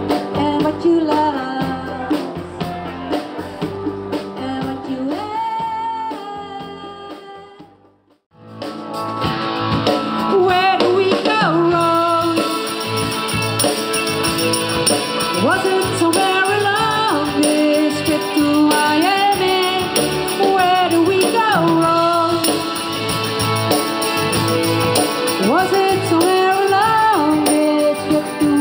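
Music with a singer. One song fades out about eight seconds in, and another starts straight after, with cymbals joining a few seconds later.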